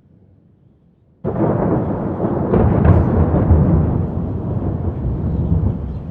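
Close thunder from a nearby lightning strike: a sudden loud crack about a second in, then a heavy rolling rumble with further cracks that slowly fades.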